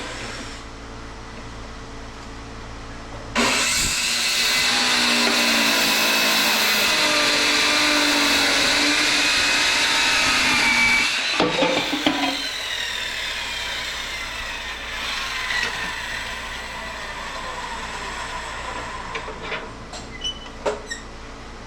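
Power saw with a carbide blade starting suddenly and cutting through a thick cast-aluminium LED light housing for about seven seconds, the pitch wavering under load. It then stops with a couple of knocks as the pieces come apart, and the motor whine falls away as it spins down.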